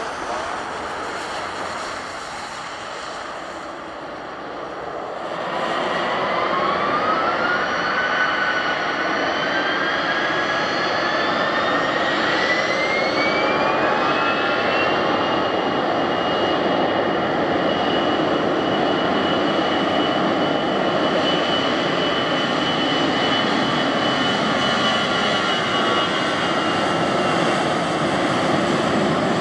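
Airbus A321-211's CFM56 turbofan engines going from idle to takeoff thrust. About five seconds in the sound grows louder, and a high whine rises in pitch until about fourteen seconds in, then holds steady over the jet roar as the airliner rolls down the runway.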